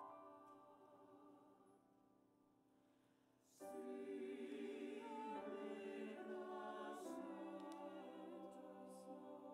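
A held chord rings and fades away. About three and a half seconds in, a church choir comes in, many voices singing together over piano accompaniment.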